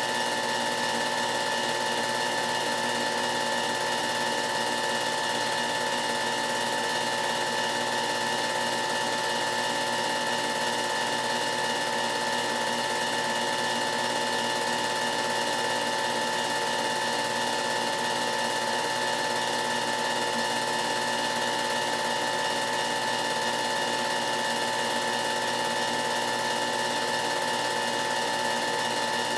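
A film projector whirring steadily: its motor and film mechanism make a constant, unchanging whir with several held tones, with no rise or fall as the race cars pass.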